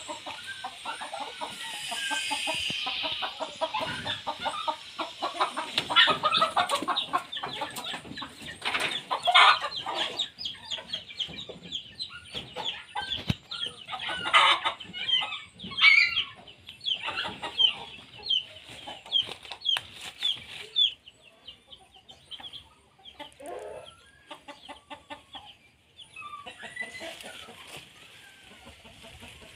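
Chickens clucking, many short calls coming in quick runs, quieter near the end.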